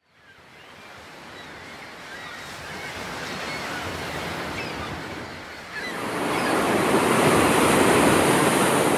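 Sea waves breaking against rocks, fading in and growing louder, with a bigger surge of surf about six seconds in.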